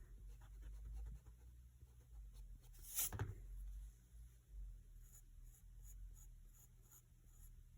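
Graphite pencil scratching lightly on sketchbook paper in short strokes, with one firmer stroke about three seconds in.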